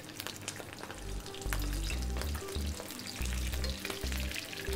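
Veal sweetbread frying in hot clarified butter in a pan, sizzling steadily with many small crackles.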